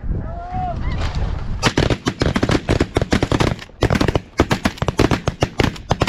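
Snow geese honking, then, under two seconds in, a rapid volley of shotgun fire from several hunters, the shots coming thick and fast and overlapping.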